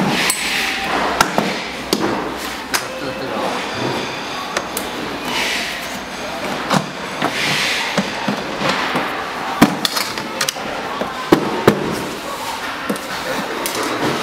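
Irregular knocks, clicks and clatters of hard plastic as the body shell and seat of a children's electric ride-on dune buggy are handled and pushed into place.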